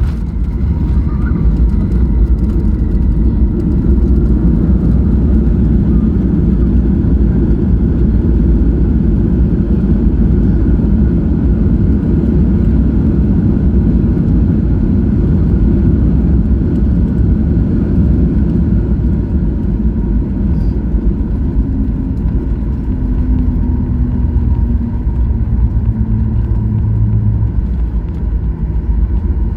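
Airplane landing: a loud, steady low rumble, with a few lower tones sliding down in pitch about three-quarters of the way through.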